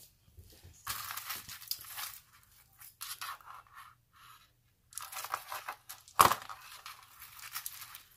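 Handling noise as necklaces are picked up and moved: crinkling and rustling in three short spells, with one sharp click about six seconds in.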